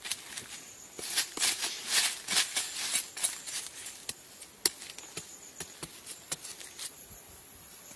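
A large knife hacking and scraping into dry, crumbly soil among dry leaves, as a quick run of scratchy strikes with one sharp strike near the middle. Insects chirr steadily in the background.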